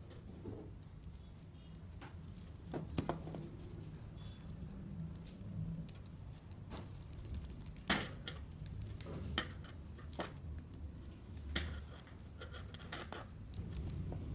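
Light clicks, taps and rattles of small wooden parts and screws being handled and fitted together by hand, the gripper of a wooden robot-arm kit with a micro servo in it. A few sharper clicks stand out over a steady low hum.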